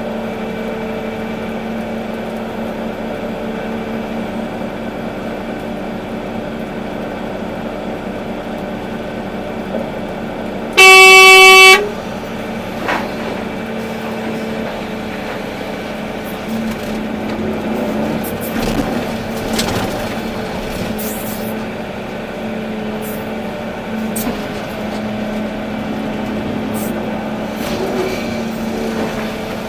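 Volvo EC380D excavator's diesel engine running steadily, with one loud horn blast lasting about a second a little before the middle. A few knocks come later.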